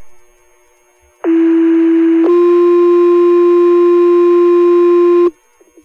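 Fire dispatch two-tone sequential page sent over the radio channel to set off the volunteer firefighters' pagers. A first tone sounds for about a second, then a second tone holds for about three seconds and cuts off sharply.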